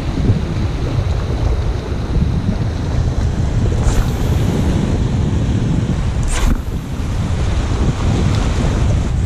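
Wind blowing across the microphone over surf at the shoreline, a steady low rush, with two brief high swishes about four and six and a half seconds in.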